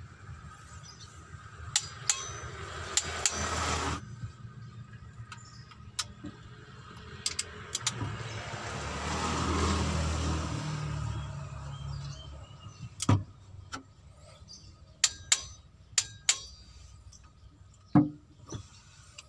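Scattered sharp metallic clicks and clinks of hand tools on the cylinder head of a Mitsubishi L300 diesel engine as the head bolts are tightened to final torque with a torque wrench. A rushing noise runs for a couple of seconds early on and cuts off suddenly, and another swells and fades around the middle.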